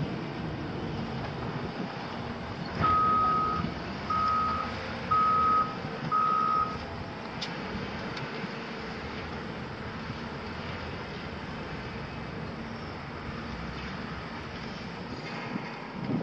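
Wheel loader's reversing alarm giving four long beeps, about one a second, over the steady running of diesel earthmoving machinery.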